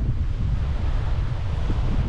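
Wind buffeting the microphone over the steady wash of sea waves on a beach.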